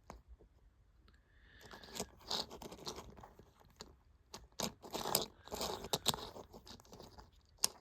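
Small toy figures handled and set down, with irregular faint clicks, scrapes and rustles.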